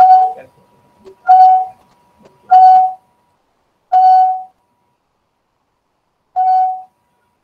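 Electronic beep: the same pitched tone sounds five times, each about half a second long, roughly every second and a quarter, with a longer gap before the last. A faint steady high tone runs beneath it for the first three seconds.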